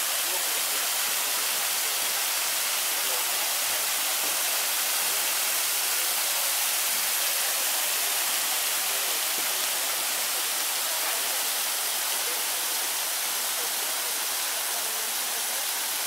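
Bigăr waterfall: water falling in a curtain of thin streams over a moss-covered rock dome into a pool, a steady, even rush of splashing water.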